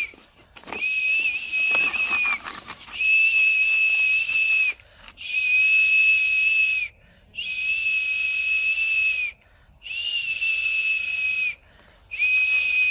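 A person whistling one long, steady, high note, six times over with short pauses between, each note dipping at its end: the drawn-out 'xu' whistle used to coax a dog to pee.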